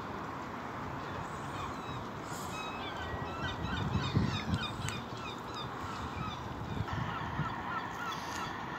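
Waterfowl calling: a run of short, repeated calls clusters about three to five seconds in, over steady outdoor background noise.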